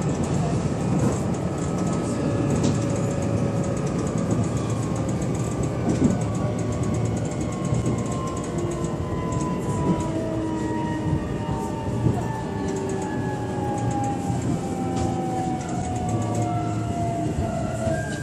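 E129 series electric train running, with a steady rail and wheel rumble and occasional clicks. Over it, several traction motor whine tones slide slowly down in pitch as the train slows, and a higher tone comes in near the end.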